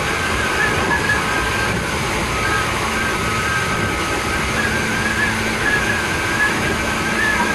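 Tokyu 8500 series electric motor car running along the line, heard from inside the car: a steady rumble of wheels on rail and running gear, with a thin, wavering high whine over it.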